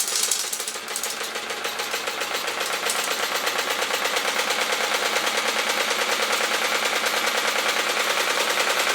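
Gutted sewing machine driven by a belted treadmill motor, its mechanism clattering in a fast, even rhythm that speeds up over the first few seconds and then runs steadily at about 650 rpm on the main shaft, roughly the top speed a sewing machine would do.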